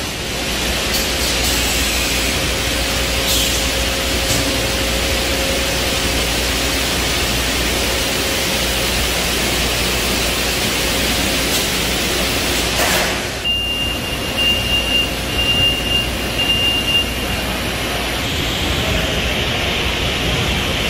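Steady hiss and low hum of factory machinery in a food-processing retort hall. About two-thirds of the way through, four short high beeps come roughly a second apart.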